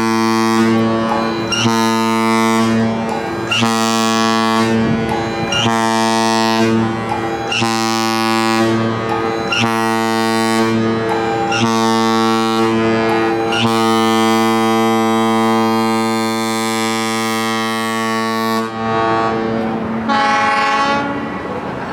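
Kahlenberg KM-110 air-powered ship horn sounding a single deep note. It gives about seven blasts roughly two seconds apart, then one long blast of about five seconds that cuts off sharply, then a short blast near the end.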